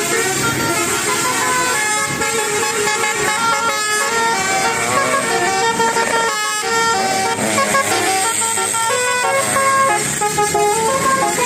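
Bus telolet horn (basuri multi-tone horn) playing a melody of stepped notes that changes pitch every fraction of a second, with a brief break a little past the middle.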